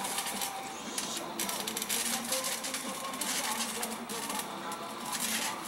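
Trampoline springs and frame rattling and creaking as wrestlers grapple and bounce on the mat, with a steady, irregular metallic clatter throughout.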